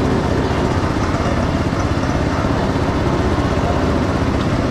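An engine running steadily, a constant drone with no change in pitch or level.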